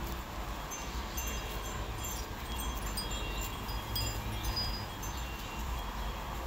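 Chimes ringing: scattered short, high tinkling notes throughout, over a steady low rumble.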